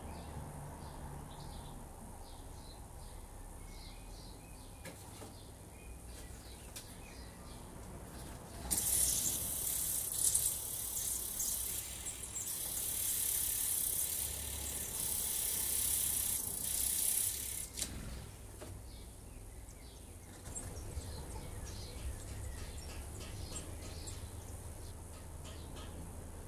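A brood of songbird nestlings begging with loud, high-pitched hissing calls as a parent comes to feed them, starting about a third of the way in and stopping abruptly after about nine seconds. Before and after, only faint scattered ticks and chirps.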